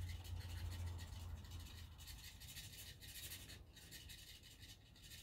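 Scratch-off card being scratched off by hand: a quiet, rapid run of short scratching strokes that thins out near the end.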